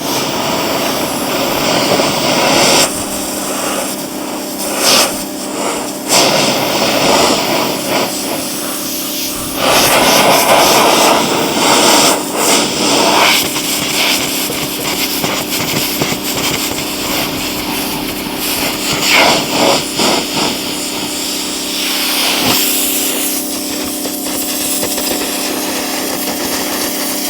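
A 2100 psi pressure washer running: a loud, steady spray hiss over the steady hum of its motor-driven pump. The spray jet strikes truck paint, styrofoam and cardboard at close range, and the hiss surges louder several times.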